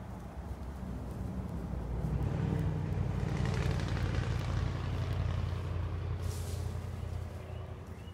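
An engine passing by: a low, steady drone that builds over the first couple of seconds and fades away near the end.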